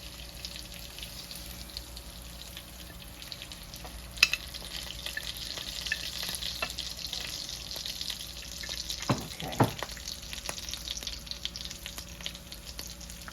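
T-bone steak and lamb chops sizzling as they fry in garlic butter in a pan, the sizzle swelling through the middle. A sharp click about four seconds in and a couple of low knocks around nine to ten seconds from handling the pan and meat.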